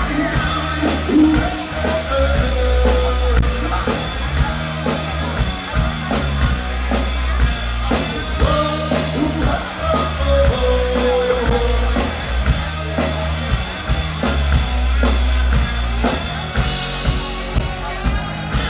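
Live rock band playing through a PA: electric guitars, bass guitar and drum kit, loud and steady.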